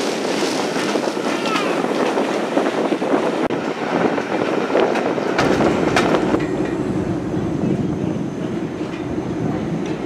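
Heritage train coaches running on the rails: wheels clicking over rail joints with a steady running noise. About halfway through it gives way to a steadier low rumble as the coaches move along the platform, with steam from the locomotive rising at the far end.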